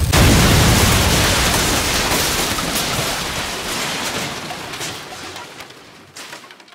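An explosion sound effect: a sudden loud blast that dies away over about six seconds.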